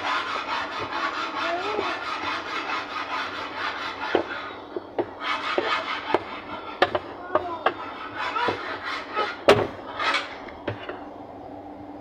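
Plastic pulsator of a Haier single-tub washing machine being twisted and pried off its shaft, which it is jammed on. A steady scraping rub for about the first four seconds gives way to a string of sharp clicks and knocks as a screwdriver levers under it, the loudest about nine and a half seconds in.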